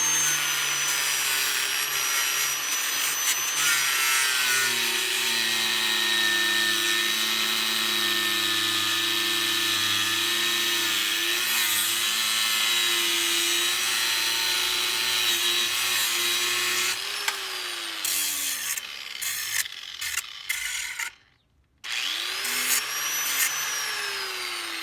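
Power grinder grinding down the end of a metal bolt: a steady motor whine under a hissing grind. After about seventeen seconds the motor slows and the grinding turns intermittent, it cuts out briefly, then spins up once more and winds down near the end.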